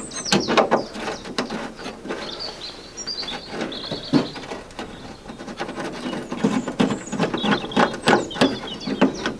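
Hand ratchet clicking in irregular bursts as a screw holding the Land Rover's wing panel is worked loose.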